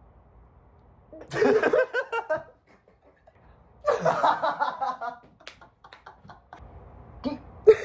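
People laughing in two short bursts, about a second in and again around four seconds, with a brief laugh near the end.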